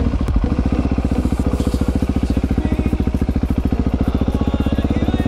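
Husqvarna 701 Supermoto's single-cylinder four-stroke engine running steadily under way at an even pace, heard from on board the bike.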